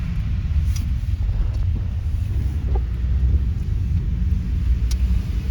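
Car driving along, a steady low road and engine rumble heard from inside the cabin, with a few faint clicks.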